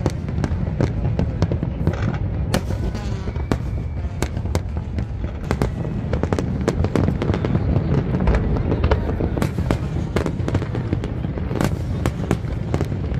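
Aerial fireworks bursting in quick succession: many sharp bangs and crackles over a continuous low rumble of exploding shells.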